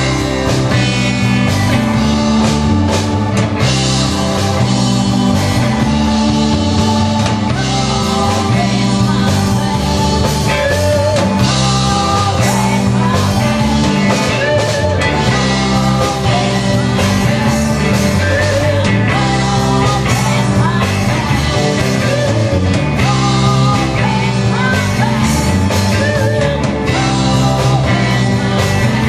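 Live rock band playing through a PA: a woman sings into a handheld microphone over two electric guitars, bass guitar, keyboards and a drum kit.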